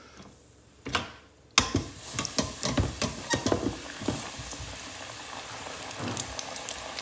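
Flour-coated chicken wings dropped into hot oil in an electric deep fryer. A sudden burst of crackling sizzle starts about one and a half seconds in, then settles into steady frying with scattered pops.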